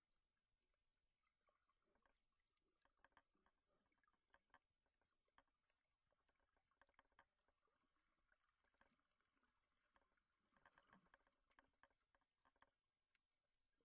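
Near silence underwater: faint hiss with scattered small clicks and crackle, a little denser about three-quarters of the way through.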